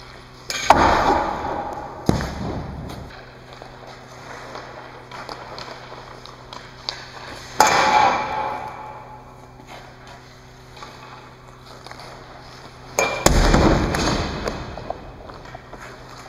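Three hockey wrist shots with a TPS R8 stick, each a sharp crack with a metallic ping as the puck rings off the steel goal frame, echoing for a second or two in the empty arena. A duller thump follows about a second and a half after the first shot.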